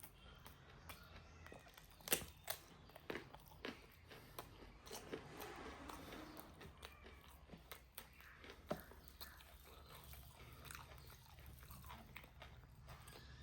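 Close-up eating sounds of a person chewing and biting pork and rice: wet chewing with scattered crisp clicks and crunches, the sharpest about two seconds in.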